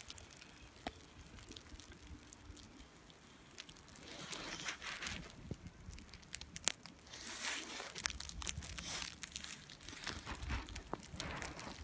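Handling noise: a phone rubbing and rustling against a padded nylon jacket, scratchy and crackly with many sharp clicks. It is fairly quiet at first and starts about four seconds in.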